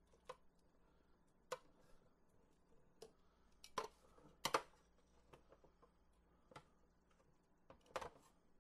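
Metal tongs and a glass baking dish clinking against each other and against the rim of the pressure cooker's metal pot as shredded pork is scraped from the dish into the pot. It comes as about eight scattered sharp clicks and taps, the loudest a quick double knock about four and a half seconds in.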